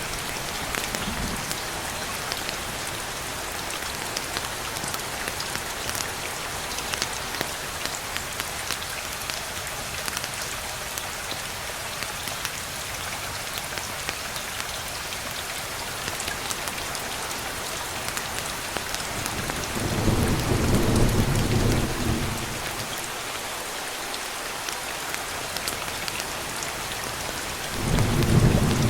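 Steady rain falling and pattering on a surface, with two low rolls of thunder, one about two-thirds of the way through and another starting near the end.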